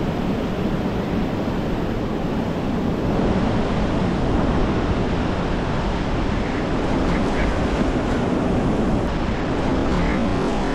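Steady rushing wind buffeting the microphone, with the most energy low down and no clear breaks.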